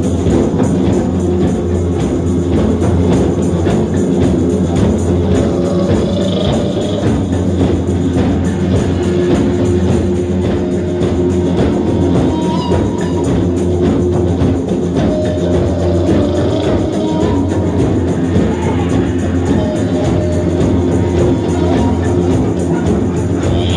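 Live drum circle: many djembes and hand drums played together in a fast, steady beat, over a low didgeridoo drone with held melodic notes above.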